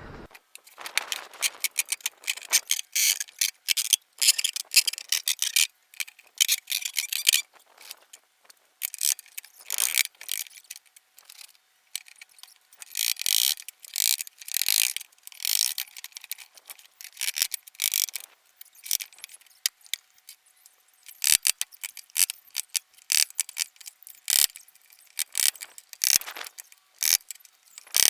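Irregular, rapid high-pitched clicking and scraping in short bursts with brief pauses, like hand work with tools.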